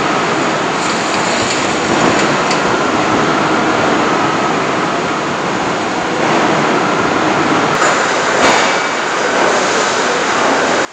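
Loud, steady din of a car-body stamping plant's machinery, with a couple of sharp metallic clanks about eight seconds in.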